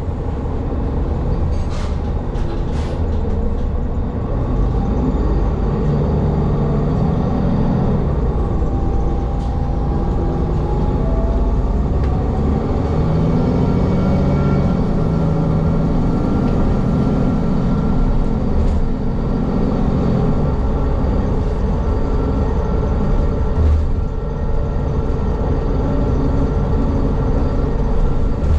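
Inside a moving city bus: steady engine and road rumble, the engine note rising and falling as the bus changes speed. A few short rattles or clicks come in the first few seconds.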